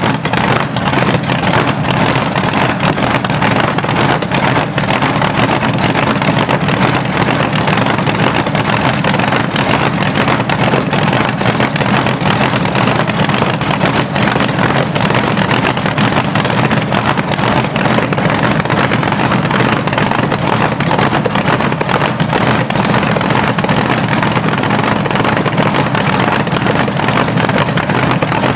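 Supercharged Chevy 468 cubic-inch big-block on methanol, with a 6-71 blower, running at a steady idle through short open exhaust pipes: a very loud, even rumble with no revving. It is the freshly overhauled engine's first run of the year.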